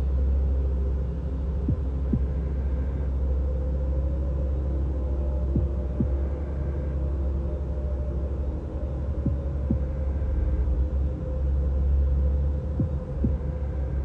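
Low rumbling drone with a soft double thump repeating about every three and a half seconds.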